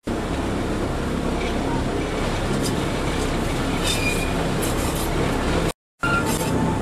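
Electric rack-railway car of the Tramway du Mont Blanc running, heard from inside the car: a steady rumble of wheels and drive with scattered clicks and a brief squeak or two. The sound cuts out for a moment near the end.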